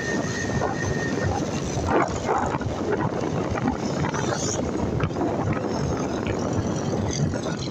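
Wind rushing over the microphone and a motorcycle engine running while riding along a road with light traffic. A thin steady whine fades out about a second in, and there are a couple of short sharp sounds about two seconds in.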